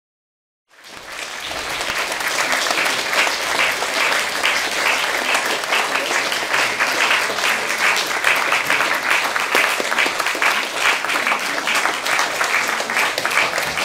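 Audience applauding: many hands clapping in a dense, steady patter that starts under a second in.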